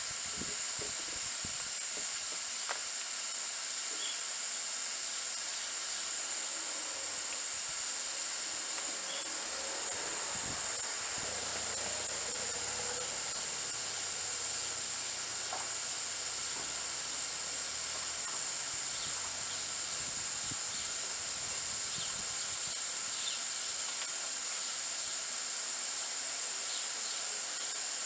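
Steam cleaner giving off a steady hiss after its full blast has stopped, with faint scrubbing of a detailing brush on the engine's plastic and metal parts.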